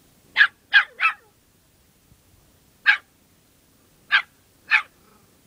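A small dog barking six short barks: three in quick succession, a single one about two seconds later, then two more near the end.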